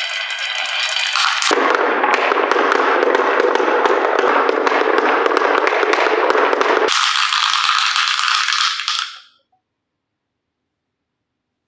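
Marbles rolling and clattering down a marble run, a dense continuous rattle of many small clicks. It turns abruptly lower and fuller about a second and a half in, goes back to a brighter rattle about seven seconds in, and cuts off to silence a little past nine seconds.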